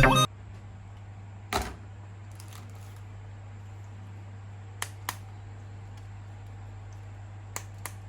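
A few sharp, isolated clicks and taps, like hard plastic toys being handled, over a steady low hum.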